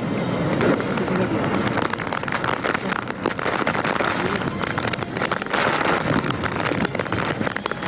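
Cyclone-strength wind and heavy rain blowing hard against the microphone: a dense, unbroken noise that surges and eases, with many small rattles and hits through it.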